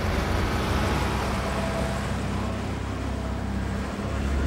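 A saloon car towing a caravan drives past close by: a steady low engine rumble with tyre noise on the tarmac.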